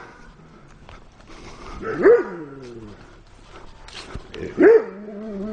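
Dog barking twice, about two seconds in and again near the end, the second bark trailing into a longer held note.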